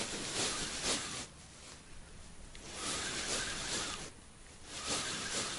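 Spinning reel cranked in three bursts of about a second each, with short pauses between them, as a lure is retrieved.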